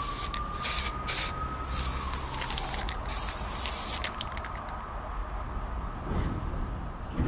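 Aerosol spray paint can hissing in a series of short bursts over the first three seconds or so, then more faintly, over a steady low rumble.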